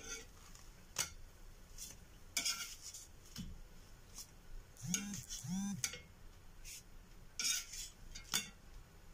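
Metal spatula and utensils scraping and clinking against a cast-iron multi-well pancake pan as cooked pancakes are lifted out: a run of short scrapes and clicks about a second apart. About five seconds in there are two short pitched sounds that rise and then fall.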